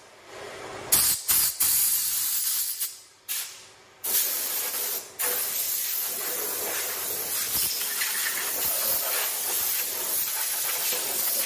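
Hissing rush of air or spray in several blasts: a short one about a second in, another around four seconds in, then a long steady one.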